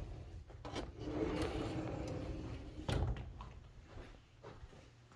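A few knocks and a louder thump about three seconds in, with rustling between them: handling and movement sounds in a small room.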